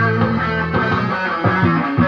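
Epiphone SG Special electric guitar played through an amp, a quick riff of short picked notes low on the neck.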